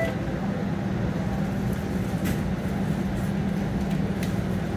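Steady low hum and rumble inside a TTC streetcar, with a couple of faint clicks.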